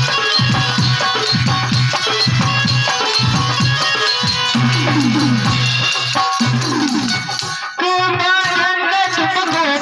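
Background music from a song: a steady drum beat with bass and plucked strings. Near the end the beat thins and a wavering melody line comes in.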